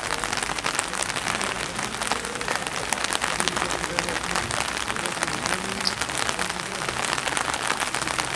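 Steady rain: a dense, even hiss of countless small drop hits on wet paving and umbrellas.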